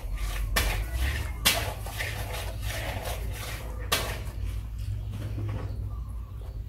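A dog eating from a bowl, with three sharp knocks about half a second, a second and a half, and four seconds in.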